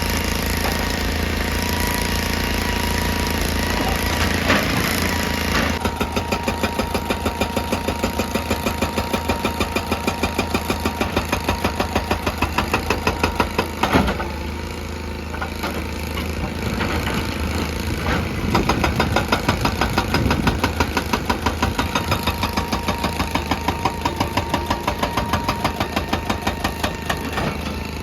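Excavator-mounted hydraulic rock breaker hammering on rock in rapid, even blows over the steady running of the excavator's engine. The hammering starts about six seconds in, stops after a sharp knock near the middle, and resumes a few seconds later for most of the rest.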